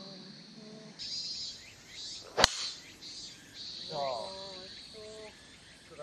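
A driver strikes a golf ball off the tee: one sharp crack about two and a half seconds in.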